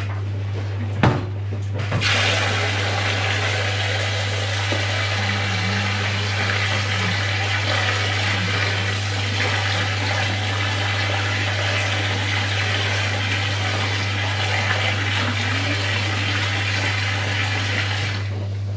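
Kitchen tap running hot water into a plastic bowl of rice as the rice is washed. The water comes on about two seconds in, runs steadily, and stops near the end.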